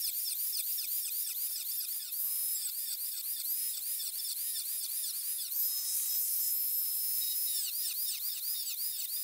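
Small rotary tool with a cut-off wheel cutting through a metal mower deck: a high whine that dips in pitch and recovers several times a second as the wheel bites, steadying for a couple of seconds past the middle.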